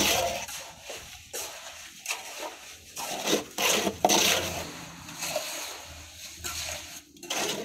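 Red plastic cup scraping in a pit of wet slurry and pouring it over a mold: a string of irregular scrapes and splashes.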